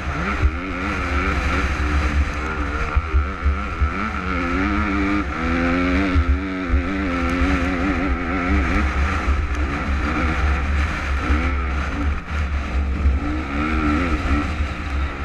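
Supermini motocross bike engine revving up and down repeatedly as the rider accelerates and backs off around the track. Heavy wind buffeting rumbles on the onboard camera's microphone.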